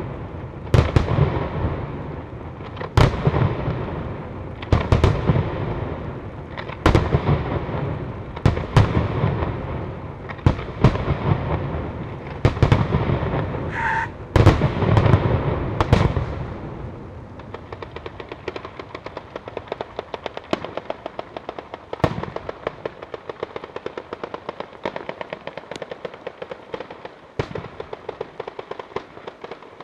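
Daytime fireworks battery: loud bangs of aerial shells bursting every second or two, each with a rumbling echo, giving way about halfway through to a fast, continuous crackling rattle of firecrackers strung along the ground.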